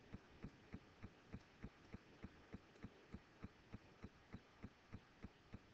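Near silence with faint, evenly spaced low clicks, about three a second.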